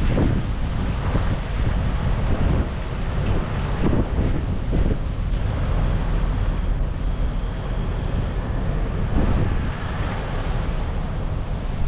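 Strong gusty wind buffeting the microphone, a loud rumble that swells and dips.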